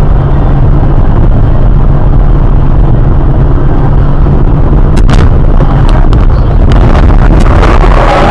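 Loud, distorted low rumble of a moving vehicle, with a few sharp clicks about five seconds in and again near the end.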